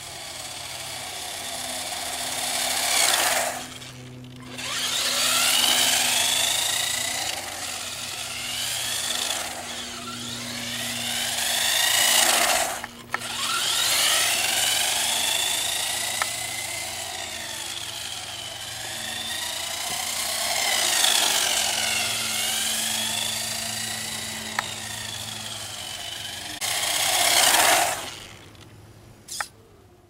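Electric motor of an Xtreme Hobby XHC-100 RC car whining, its pitch rising and falling as the car speeds up and slows, with a loud hiss. It swells loud several times as the car passes close, cuts out briefly twice, and fades away near the end.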